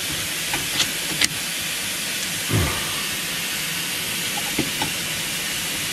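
Steady hiss, with a few faint clicks and scrapes from a threaded brake-piston wind-back tool being turned to push a rear caliper piston back. A short low sound comes about two and a half seconds in.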